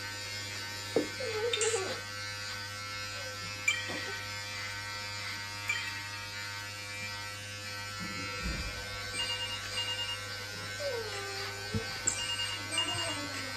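Electric hair clippers buzzing steadily while cutting hair close to the scalp. Two short runs of high electronic beeps come in the second half.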